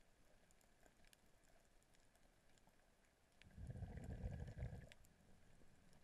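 Underwater ambience picked up through a camera housing: faint scattered crackling clicks, with a muffled low rumble of water movement for about a second and a half in the middle.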